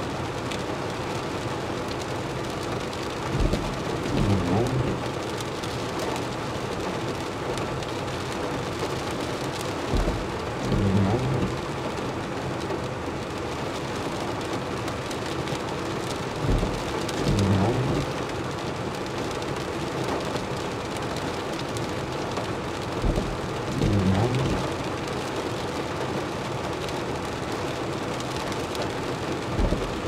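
Steady rain falling on a car's windshield and roof, heard from inside the car. About every six and a half seconds the windshield wipers make a pass: a knock, then a low sweep lasting about a second and a half.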